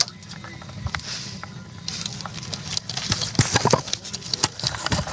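Irregular clicks, taps and light rustling, growing busier and louder over the second half.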